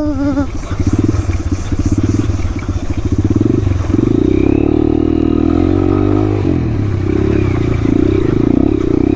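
Motorcycle engine running, its pitch rising and falling with the throttle partway through.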